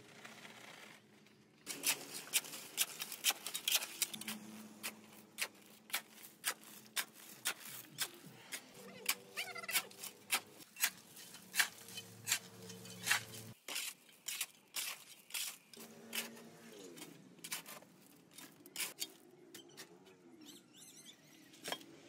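A steel shovel repeatedly digging into and turning a heap of gravel and dry cement: sharp scrapes and clatters of stones, one or two a second and uneven. This is concrete mix being blended by hand.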